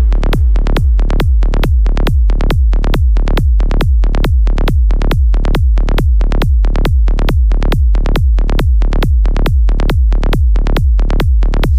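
Progressive psytrance track with a steady four-on-the-floor kick drum, about two and a half beats a second, and a rolling bassline between the kicks.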